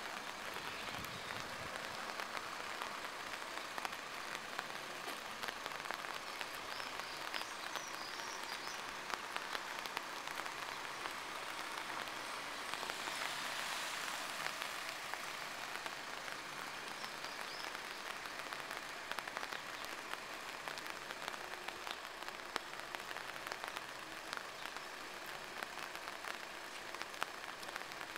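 Steady rain falling, an even hiss with many small scattered drop ticks, swelling slightly about halfway through.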